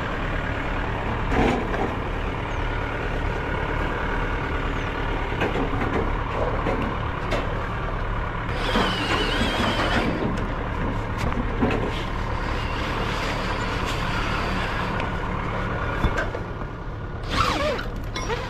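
A forklift running and working as it lifts freight off a flatbed trailer, over a steady low engine drone.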